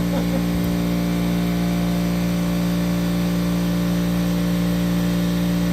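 Steady motor hum at a constant pitch from an air compressor running as its tank refills.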